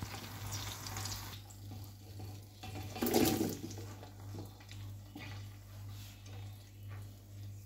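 Chopped tomatoes tipped from a plastic cutting board into hot oil with browned onions, the sizzle surging about three seconds in as they hit the pan, then frying on more quietly. A low steady hum runs underneath.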